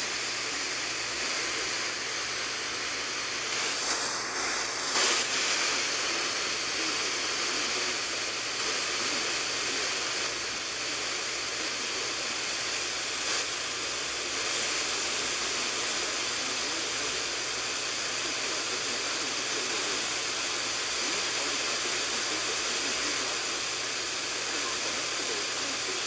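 Steady static hiss from a weather alert radio's speaker, receiving a marginal NOAA Weather Radio signal with no voice coming through. A brief louder rush of noise comes about four to five seconds in.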